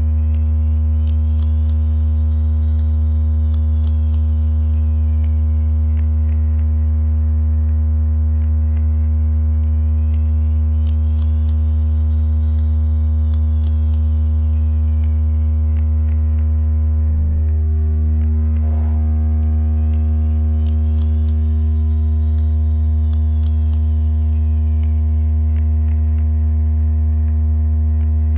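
Electronic fish-attracting sound effect: a loud, steady low-pitched hum with a faint high whistle sweeping up and down about every ten seconds. The hum's upper tones shift briefly about seventeen seconds in.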